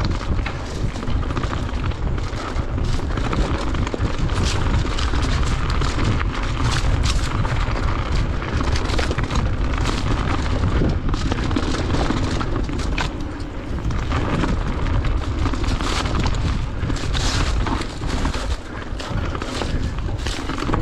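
Mountain bike riding a rocky singletrack: a steady rumble of wind buffeting the microphone, with the tyres crunching over stones and the bike rattling in frequent sharp clicks and knocks.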